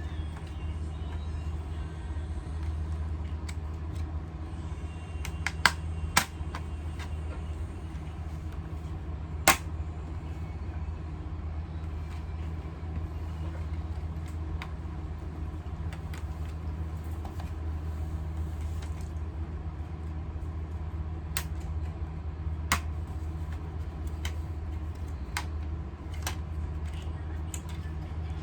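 Steady low hum with scattered sharp clicks and taps, the loudest a little after five seconds, around six seconds and near ten seconds, with several more late on. The clicks are small hard parts being handled while working on a laptop.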